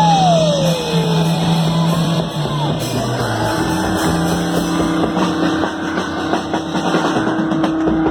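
Live rock band playing with drums and bass: a high note slides down in the first second, then a long held note, and the playing breaks off near the end.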